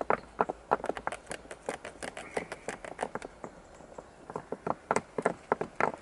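Survival-bracelet paracord being sawed back and forth over a rock edge in an abrasion test: quick scraping strokes, about four a second, with a short pause about two-thirds of the way in.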